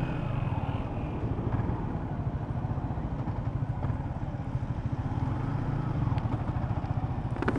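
Yamaha Sniper 150 motorcycle's single-cylinder four-stroke engine running steadily while riding at cruising speed, with a low pulsing rumble.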